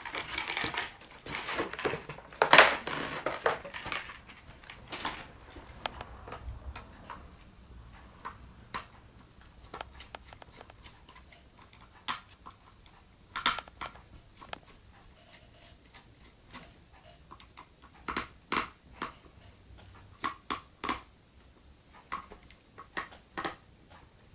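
Scattered clicks, taps and light knocks of screws, a screwdriver and cooler parts being handled while an Arctic Accelero Twin Turbo cooler is taken off a graphics card. The clatter is busier in the first few seconds, with a sharp loud click about two and a half seconds in.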